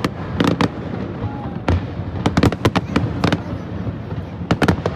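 Fireworks display bursting overhead: clusters of sharp bangs, a few around half a second in, a run between about two and three and a half seconds, and more near the end, over a steady rumble of distant explosions.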